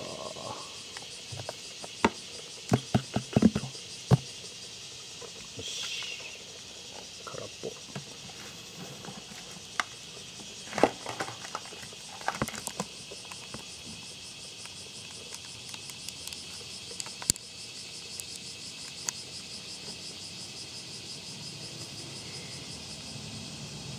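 Beetle larvae and crumbly beetle mat being tipped from a plastic scoop onto soil: light pattering with scattered sharp taps, clustered a couple of seconds in and again about halfway, over a steady high hiss.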